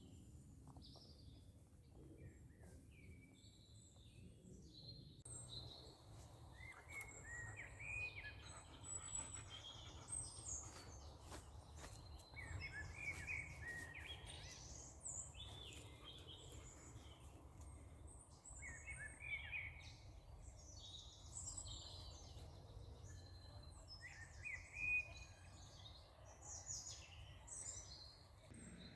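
Several small birds singing and chirping over a low, steady background rumble, with a brief sharp knock near the end.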